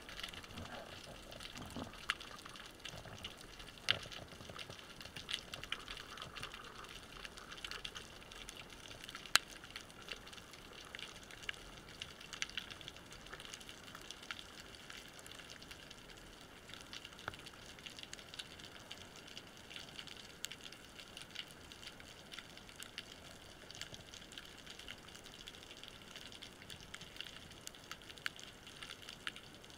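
Underwater ambience picked up by a camera in its housing: a steady faint hiss with many small scattered clicks and crackles, a few of them sharper and louder.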